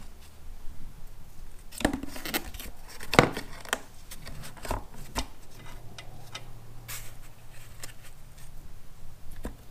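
Handling noise as a cardboard template is fitted between a motorcycle's frame rails and wiring: irregular light clinks and knocks, the loudest about three seconds in, with a faint low hum in the second half.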